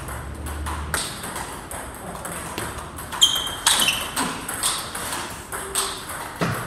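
Table tennis ball clicking sharply off rackets and the table in a fast rally, an irregular run of quick pings.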